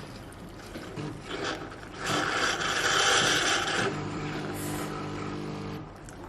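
Coffee machine running its cleaning cycle: a few small clicks, then a loud hiss for about two seconds, followed by its pump humming steadily for about two seconds before it stops.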